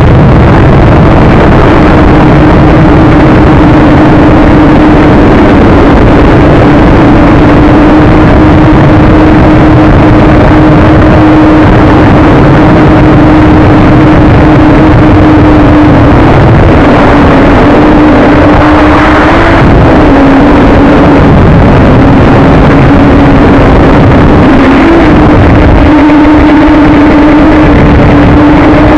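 JJRC X1 quadcopter's brushless motors and propellers whining steadily, as heard by its onboard camera, with the pitch wavering briefly a few times as the motors work against the wind. Heavy wind buffets the microphone throughout, and the sound is very loud.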